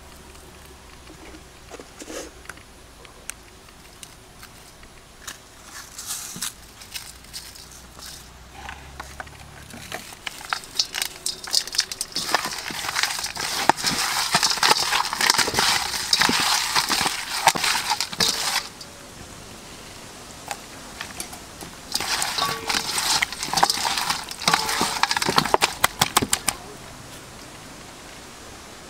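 Raw fish pieces being mixed by hand with seasoning in a stainless steel bowl: wet squishing and crackling with small clicks. There are scattered clicks at first, then two long spells of steady mixing, the first starting about halfway through and the second near the end.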